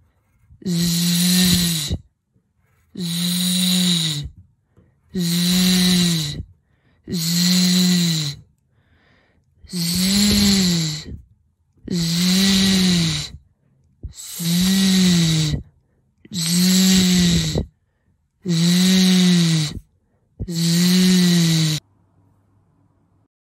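A woman's voice making the long buzzing 'zzz' sound of the letter z, ten times in a row, each held for about a second and a half with short pauses between.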